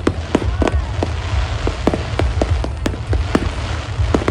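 Fireworks display bursting, with many sharp bangs coming several a second at uneven intervals over a continuous low rumble.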